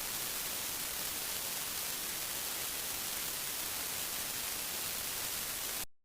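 Steady television-style static hiss, even and unchanging, that cuts off suddenly near the end.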